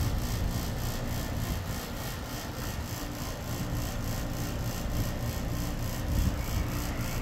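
Rooftop air-conditioning condensing units running: a steady low hum and fan whir with a faint, even pulsing.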